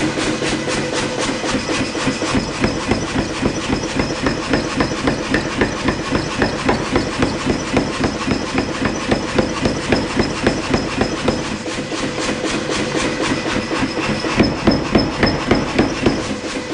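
Rapid, evenly spaced hammer blows on a hot Damascus billet, about three to four a second, forging it flat to set the forge welds, with a steady hiss and hum running underneath. The blows ease briefly a little after halfway, then come harder near the end.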